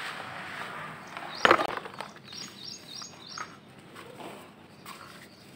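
Lumps of dry dirt tipped from a plastic dish into a bucket of fine powdery soil, hissing as they pour, with one loud thump about one and a half seconds in. Then softer rustling as hands sift and sprinkle the dry powder. Birds chirp briefly in the background.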